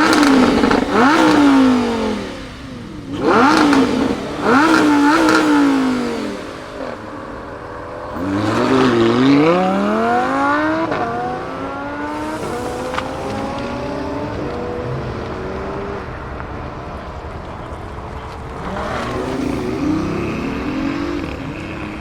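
Supercar engines revving and accelerating away: two loud bursts of revving in the first six seconds, then a car accelerating hard from about eight seconds in, its pitch climbing and fading into the distance, and another rise in revs near the end.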